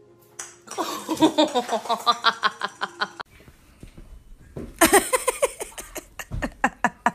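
Laughter in quick repeated pulses, heard in two stretches: one starting about a second in and lasting two seconds, and another in the second half.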